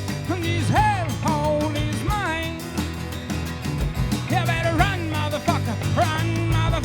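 A rock band of electric guitar, bass and drums playing live. A lead line slides and bends in pitch over steady bass and drums.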